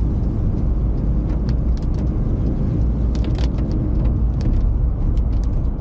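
Car driving along a road: a steady low rumble of engine, tyre and road noise, with scattered short sharp ticks.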